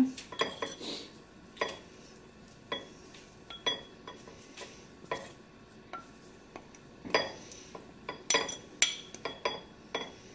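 A metal spoon clinking and scraping against a bowl while it breaks up and stirs damp, crumbly growing medium, in irregular taps that come thicker about seven to nine and a half seconds in.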